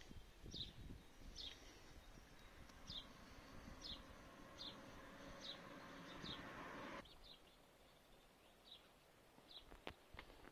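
A small bird chirping outdoors: short, high, falling chirps repeated about every two-thirds of a second, faint. A faint steady hiss underneath cuts off suddenly about seven seconds in.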